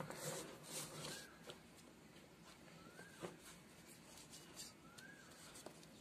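Faint scratching of a red oil pastel rubbed across paper, heard in the first second or so. A faint short chirp repeats about every two seconds.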